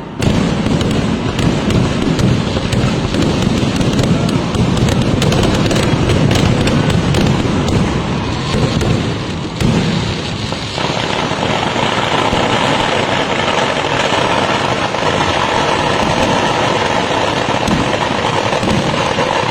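A fireworks display of rapid-fire firecrackers going off in a dense, unbroken string of bangs. About ten seconds in, the separate cracks blur into a more continuous, steady din.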